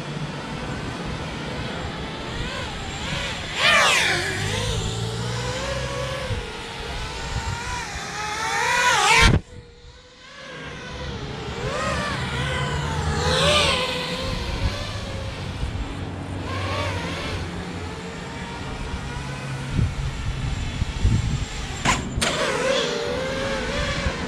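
FPV racing quadcopter's brushless motors whining, the pitch sliding up and down with the throttle as it flies around and past several times. The loudest pass comes about nine seconds in and cuts off suddenly.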